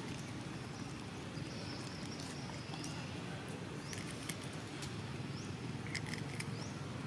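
Faint rustling and small clicks of macaques eating tomatoes and shifting on a plastic bag of produce, over steady outdoor background noise, with a few short high chirps.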